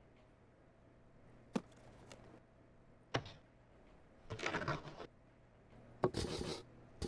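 Unboxing handling of a cardboard product box: a few sharp taps and knocks with two short stretches of scraping and rustling between them.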